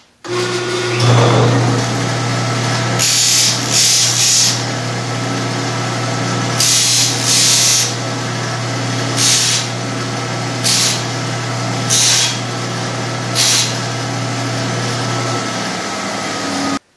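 Bench disc sander running with a steady motor hum, switched on at the start. An aluminum strap bracket is pressed against the abrasive disc in a series of short passes to round its corners, each pass adding a brief loud grinding hiss. Near the end the hum stops and the disc winds down.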